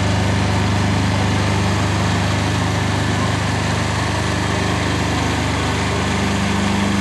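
Ride-on lawn tractor's engine running at a steady, unchanging pitch, a low even hum.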